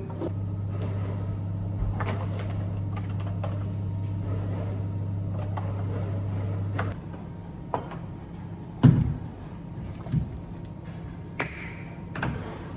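Knocks and thuds of items and a rubber bar mat being handled and set down on a bar counter, the loudest thud about nine seconds in. For roughly the first half, a steady low hum runs underneath and then cuts off suddenly.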